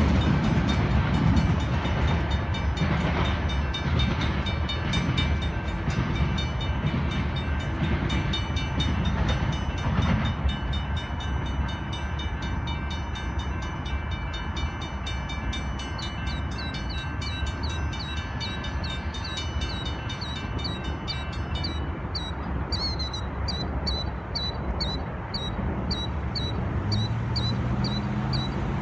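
Railroad grade-crossing bell ringing about twice a second while the rumble of the departing Union Pacific freight train fades; the bell stands out clearly once the train noise has died away, about two-thirds of the way in. Near the end a road vehicle's engine comes in underneath.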